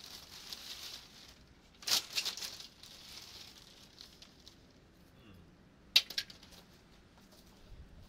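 Broken plastic box fan parts clattering as they are gathered up and set down on a cloth: a burst of rattling about two seconds in, and a sharp click with a lighter one right after it about six seconds in.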